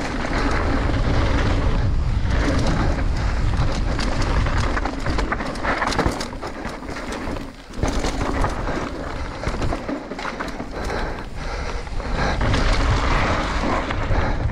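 Mountain bike descending a dirt trail at speed, heard from the rider's camera: wind buffeting the microphone, tyres rumbling over dirt and stones, and a steady clatter of knocks and rattles from the bike. The noise drops away briefly about halfway through.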